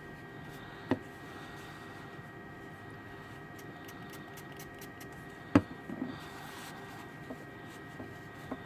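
A few sharp taps and knocks from graphics card parts being handled on a work surface. There is one about a second in and the loudest about five and a half seconds in, followed by lighter clicks. Under them runs a faint steady hum.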